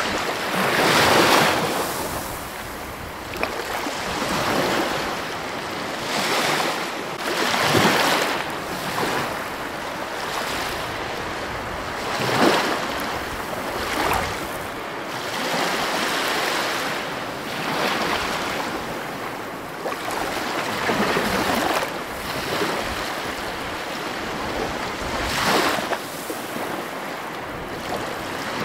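Ocean surf: waves breaking and washing in, a swell of rushing water every two to four seconds.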